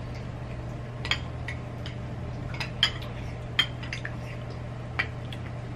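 Cutlery clinking and tapping against dishes as two people eat: scattered short, sharp clinks, a few louder ones about a second in, near the middle and near the end, over a steady low hum.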